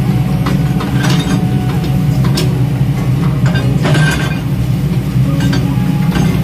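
A tracked hydraulic excavator's diesel engine runs loud and steady as the machine works its bucket through earth and gravel. Several metallic clinks and clanks from the bucket and stones ring out over the engine.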